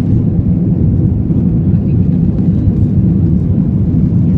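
Loud, steady aircraft cabin noise during the climb out after takeoff: the low rumble of the engines and rushing air, heard from inside the cabin.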